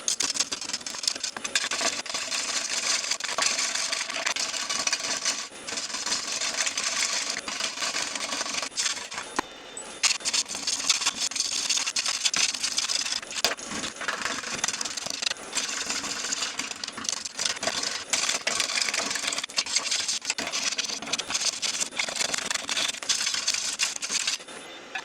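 Yew platter spinning on a wood lathe with a tool or abrasive held against the wood: a continuous rasping hiss that starts abruptly and stops just before the end, over the lathe's running motor.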